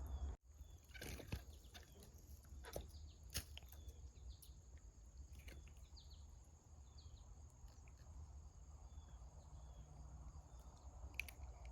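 Near silence: outdoor pond-side room tone with a faint steady low rumble, a few soft scattered clicks and some faint short high chirps.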